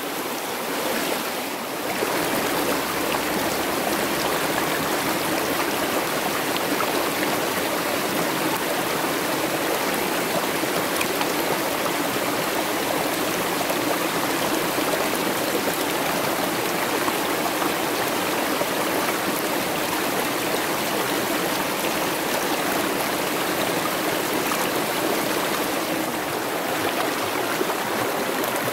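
Rocky mountain stream rushing over stones, a steady, even sound of running water that gets a little louder about two seconds in.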